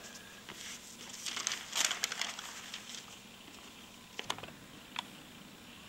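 Sheet of rice paper being handled and moved, rustling and crinkling for a second or so, followed by two short sharp clicks near the end.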